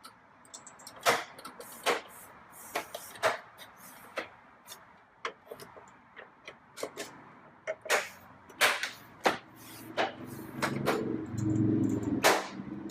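Sharp plastic clicks and snaps from a GE microwave door, as its plastic door cover is pressed back on and its clips engage. About ten seconds in, a steady low hum starts under the clicks: the microwave running again now that the door latch is fixed.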